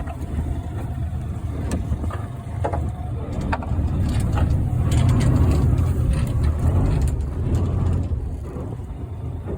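Fishing boat's engine running with a steady low rumble, with a few short clicks over it.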